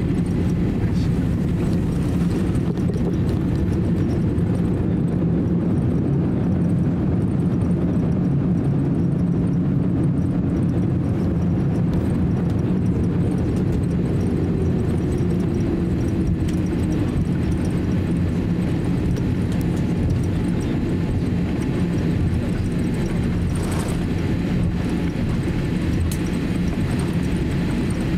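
Steady low rumble inside the cabin of a Boeing 787-8 airliner rolling out along the runway just after landing, with its spoilers raised. The engine and rolling noise carry a constant low hum.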